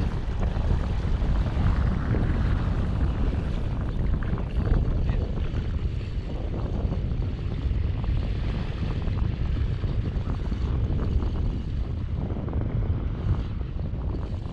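Wind buffeting the microphone: a steady low rumble with no distinct tones.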